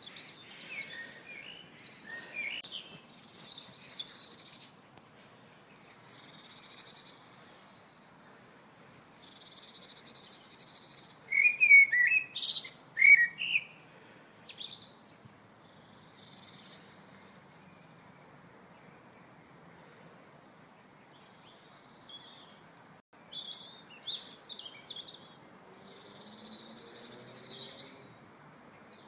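Birds chirping and singing, with a loud flurry of calls about twelve seconds in, over a faint steady hiss. A faint, high note repeats at an even pace underneath.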